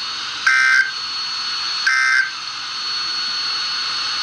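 Two short buzzy data bursts of the SAME end-of-message code that closes a NOAA Weather Radio Emergency Alert System message, about a second and a half apart, played back through a camera speaker. After the second burst, only a steady radio static hiss and a thin high tone remain.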